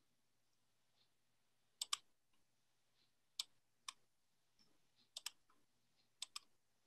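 Faint, sharp clicks of a computer mouse, about eight in all, several coming in quick pairs like double-clicks.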